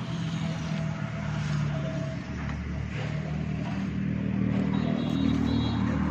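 Swaraj 744 FE tractor's diesel engine running steadily, growing gradually louder toward the end.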